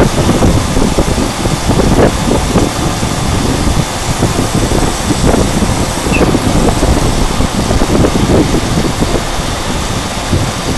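CNC router milling an acrylic plate: the spindle and cutter run loud and steady, with an uneven rasping texture as the bit cuts the plastic.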